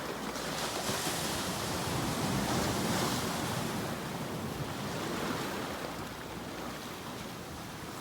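Sea waves breaking and washing on the shore, a steady surf noise that swells about two to three seconds in and eases off towards the end.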